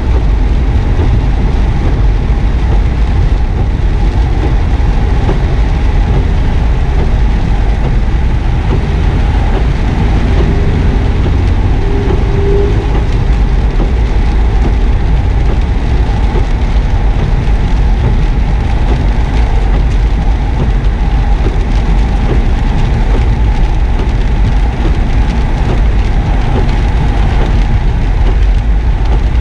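Steady cabin noise in a 2009 Subaru WRX S: the turbocharged flat-four at low revs off the throttle, with tyres hissing on a wet track surface as the car slows.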